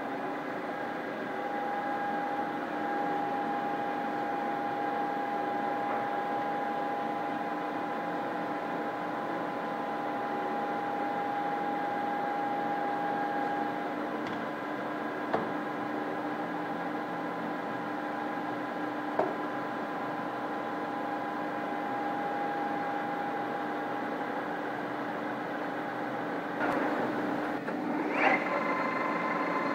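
Köping S8C engine lathe running with a steady hum and whine from its motor and geared headstock. A few sharp clicks come in the middle as controls are worked, and near the end there is a brief louder surge with a short rising tone.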